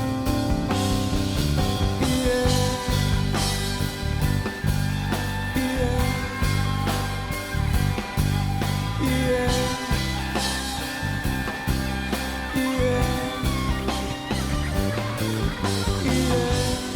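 A band playing an instrumental break of a pop-rock song with no singing: a drum kit keeps a steady beat under a sustained lead melody.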